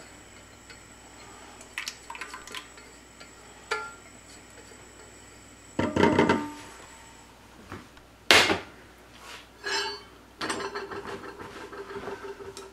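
Silicone spatula scraping and tapping against a stainless-steel saucepan and mixing bowl, with clanks of the metal cookware being handled and set down; a sharp clank about eight seconds in is the loudest, followed by a run of light ticks and a faint ring from the bowl.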